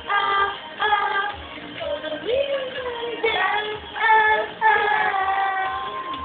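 Pop music with a high singing voice, the melody bending and breaking into short phrases, ending on a long held note.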